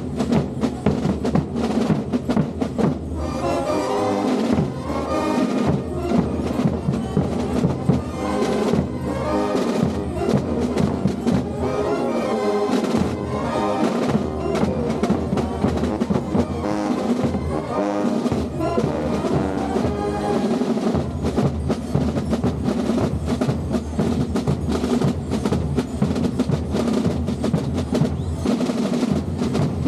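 Gille carnival band: drums beating a steady march rhythm, with brass playing the tune over them from about three seconds in until about twenty seconds in.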